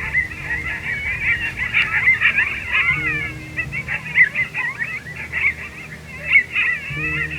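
A chorus of coyote yips and howls: many high, wavering calls overlapping one another the whole time.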